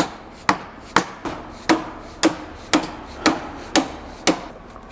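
Hammer tapping a seized or sticky agitator shaft out of a John Deere 1910 air cart meter housing: about ten sharp knocks, roughly two a second.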